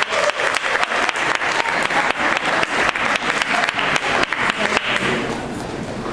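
Audience applauding, dense clapping that fades away about five seconds in.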